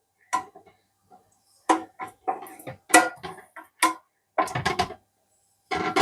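A kitchen utensil clinking and scraping against a baking pan as béchamel sauce is spread over its bottom: a dozen or so irregular clinks and knocks.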